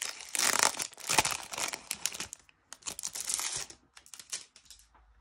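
Foil wrapper of a FIFA 365 trading-card booster pack being torn open and crinkled by hand, for about two and a half seconds, then a shorter burst of crinkling about three seconds in. A few light clicks follow as it dies away.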